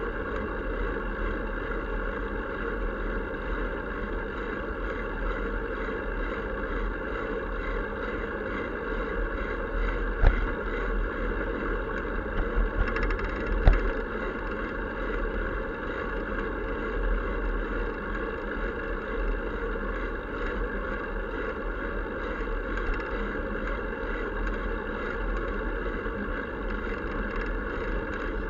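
Steady wind and rolling noise picked up by a camera on a bicycle being ridden along a paved street, with two sharp knocks about ten and fourteen seconds in.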